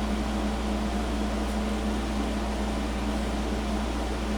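Steady background machine hum with a fan-like whoosh, a constant low drone and a steady higher tone, unchanging throughout.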